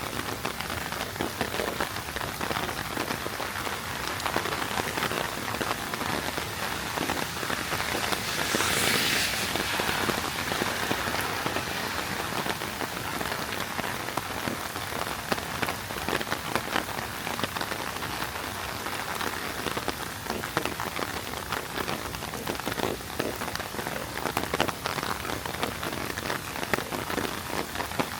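Heavy rain falling, a steady hiss dotted with the ticks of individual drops. A louder rushing swell rises and fades about nine seconds in.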